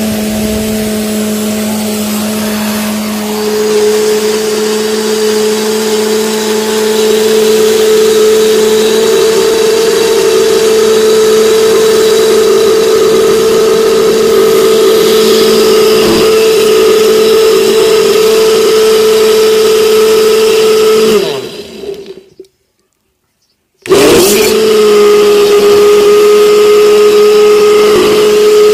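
Electric kitchen blender motor running at full speed, churning mango, condensed milk and yogurt into a puree; its pitch steps up a few seconds in as the mix loosens. After about twenty seconds it is switched off and winds down, a second or so of silence follows, then it is switched on again and runs to the end.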